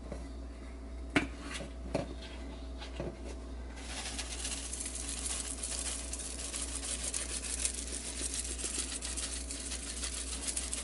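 Dry seasoning shaken over chicken wings on a wire rack: a few light clicks, then from about four seconds in a steady fine rattle and patter of falling granules.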